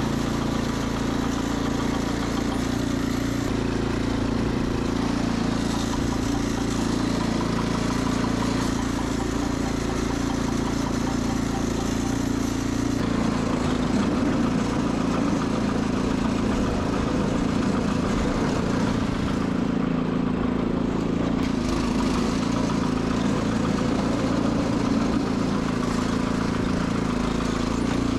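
Sears Suburban 12 garden tractor engine running steadily, its sound turning rougher and less even about halfway through.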